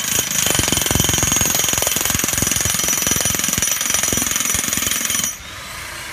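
Electric demolition hammer driving a long steel bearing pin down through a Diamond Pier's concrete head into the ground: rapid, steady hammering with a high motor whine, cutting off suddenly about five seconds in.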